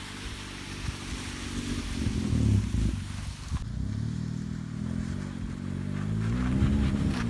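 A motor vehicle's engine running, its pitch rising and falling slightly as the revs change.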